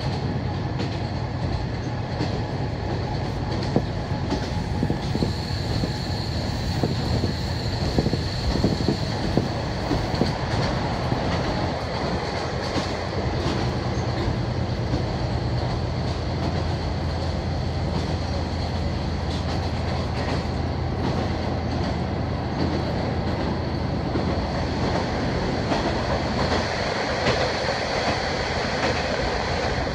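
Interior sound of a KiHa 48 diesel railcar running: a steady engine drone and rolling wheel noise with occasional clacks over rail joints. The sound fills out near the end as the car enters a tunnel.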